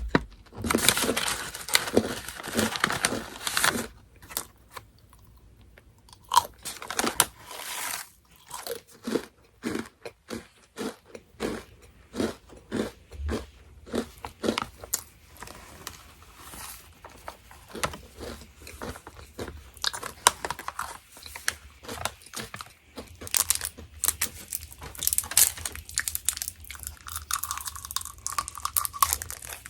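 Orion Mala Chicken Pop, a crunchy puffed snack, being bitten and chewed close to the microphone: a run of crisp crunches, about two a second in the middle, with a denser burst of crunching in the first few seconds.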